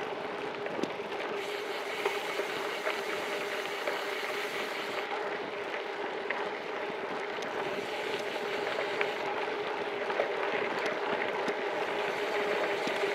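Gravel bike rolling fast downhill on a dirt road: steady tyre noise on the gravel with a continuous buzzing hum and wind on the microphone, and scattered small ticks of grit against the bike.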